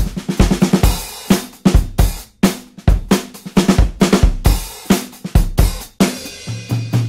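Background rock music: a drum kit beat with bass drum, snare and cymbals. A low held bass note comes in near the end.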